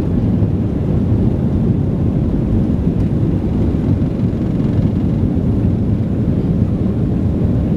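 Jet airliner on its takeoff roll, heard from inside the cabin: a steady, loud, low rumble of engines and runway.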